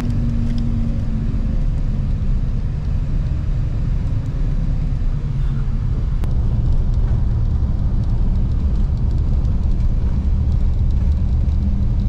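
Steady low rumble of engine and road noise inside the cabin of a moving long-distance coach.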